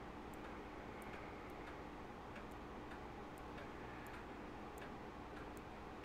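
Faint room tone: light ticking, about two to three ticks a second, over a faint steady hum.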